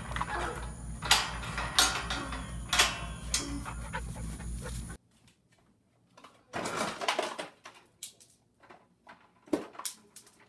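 Dog panting hard, with sharp clicks about once a second. About five seconds in it cuts to a much quieter run of scattered knocks and scrapes as a dog paws at a refrigerator door.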